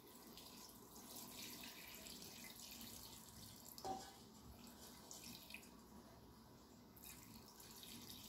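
Rice-washing water pouring in a thin stream from a stainless steel bowl into a stainless steel pot: a faint, steady trickle. About four seconds in there is one brief tap.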